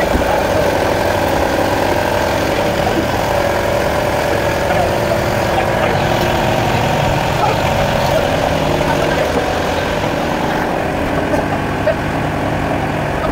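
Motor boat's engine running steadily, an even drone that holds the same level throughout.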